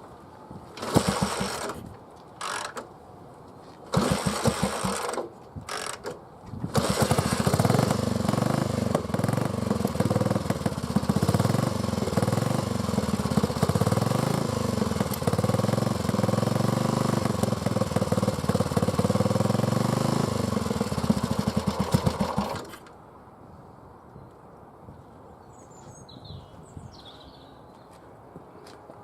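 1955 BSA C12's 250cc single-cylinder engine, hotwired, firing in a few short bursts before catching, then running steadily for about sixteen seconds and cutting off suddenly. It is the first start of a neglected, wrecked bike.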